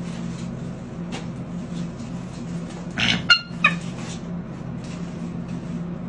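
Bald eagle calling: about three seconds in, a short rough burst followed by two quick high-pitched chirps. A steady low hum runs underneath.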